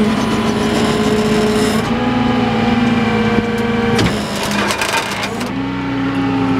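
Flatbed tow truck's PTO-driven hydraulic pump whining under load over the running engine as the control lever tilts the bed. The pitch steps up slightly a couple of times, and there is a short stretch of clatter about four seconds in.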